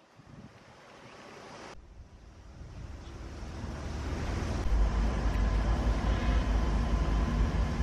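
Outdoor ambience fading in, with wind rumbling on the microphone that grows steadily louder and then holds steady for the second half.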